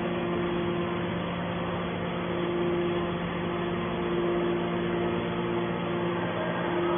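Scrap metal baler's hydraulic power unit running: a steady machine hum with a constant low tone and a second tone above it.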